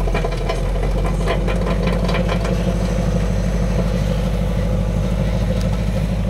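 Lifted Toyota pickup's engine running steadily at low revs with an even, fast pulsing as the truck crawls over dirt. There are short clicks and crunches in the first two seconds or so.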